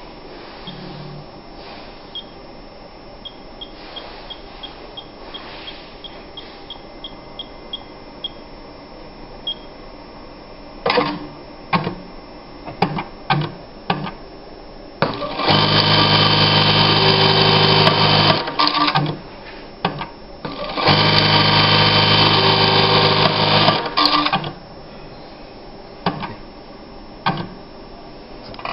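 Juki LBH-1790S electronic lockstitch buttonhole machine: a run of short high beeps from its operation panel as keys are pressed, then a few short clunks of the clamp, then two sewing cycles of about three seconds each with the machine running fast and steady, each followed by short clunks.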